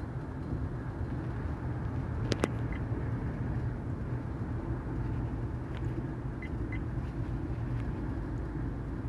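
Steady low rumble of a moving minivan heard from inside the cabin, picked up by the dash cam's microphone, with a single sharp click about two and a half seconds in.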